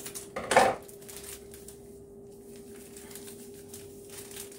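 Kitchen scissors snipping open a plastic packet of macaroni-and-cheese powder about half a second in, then the packet crinkling faintly as its contents are shaken out over a pot. A steady low hum runs underneath.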